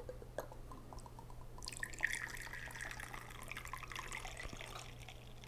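Whiskey pouring in a thin stream from a bottle's pour spout into a glass of ice cubes: a faint liquid trickle with a slight whistle, strongest from about two seconds in and tapering off near the end.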